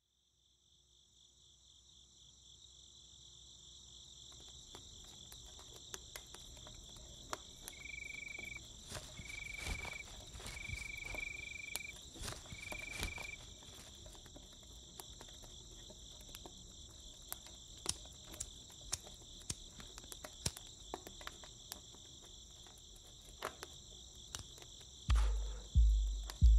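Steady cricket chirring fades in as the soundscape opening of a rock song, with scattered light clicks. In the middle comes a run of five short, high, steady tones. Near the end, deep pulsing bass thuds begin, about one and a half a second, as the music starts.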